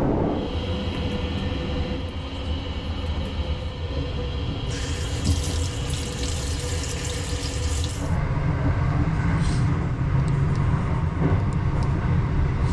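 Water from a washbasin tap on a moving train runs onto a hand for about three and a half seconds, starting about five seconds in and cutting off suddenly. Under it runs the train's steady low running noise.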